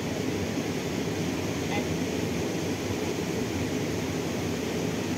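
Steady rushing noise of river water running over rocks, even and unbroken.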